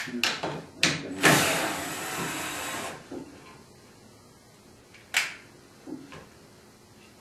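A few knocks of wooden slats being set in place, then a power screwdriver runs for about two seconds, driving a screw into a wooden back slat. Two lighter knocks follow near the end.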